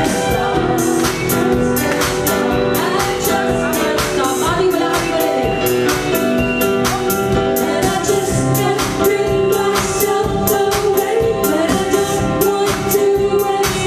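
Live band playing a song with a singer, over a steady beat.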